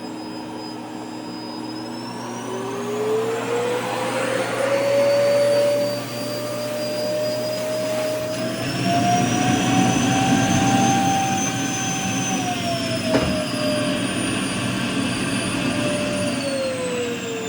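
Vacuum cleaner motor running with a whining tone that climbs in pitch over the first few seconds, rises again around the middle and then falls back toward the end, with a single sharp click about two thirds of the way through.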